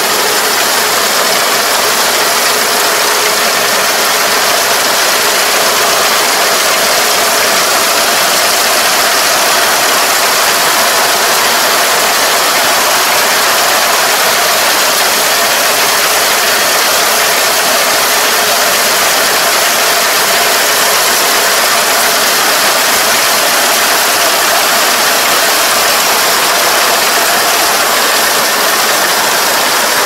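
Farm machine running steadily under load: a continuous engine drone mixed with a dense mechanical clatter of gears and moving parts.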